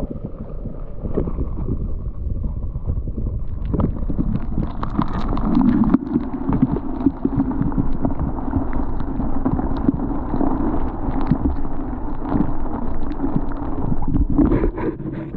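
Rumbling, crackling handling noise from a camera being lowered down a flooded mine shaft, with water sloshing and gurgling against it. The noise thickens into a denser rumble about six seconds in.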